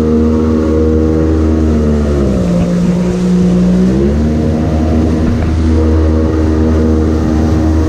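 Outboard jet boat engine running hard as the boat drives upriver. The revs drop briefly a couple of seconds in and climb back about two seconds later.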